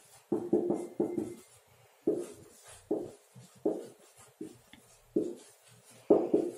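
Marker pen writing on a whiteboard: about ten short strokes, roughly one or two a second.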